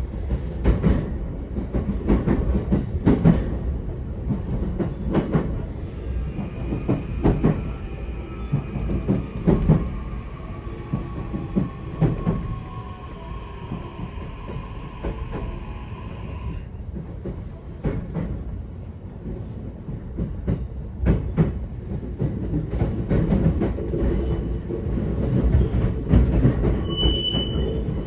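E131-500 series electric train running on the line, with steady low rumble and irregular knocks from rail joints under the wheels. A wheel squeal rises from about six seconds in and stops about ten seconds later, and a short high squeal comes near the end.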